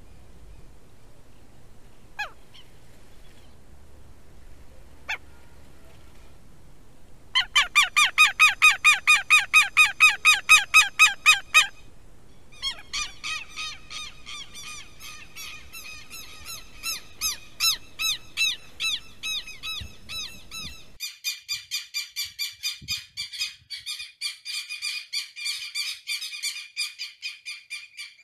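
Southern lapwing calling: a few single sharp calls, then from about seven seconds in, long runs of fast repeated calls at about four or five a second.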